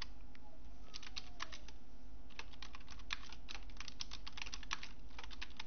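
Computer keyboard typing: irregular runs of keystrokes, several short bursts of clicks with brief pauses between, over a steady low background hum.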